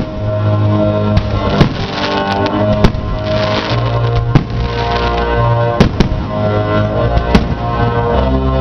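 Fireworks going off in sharp bangs at irregular intervals, over loud music with held low notes.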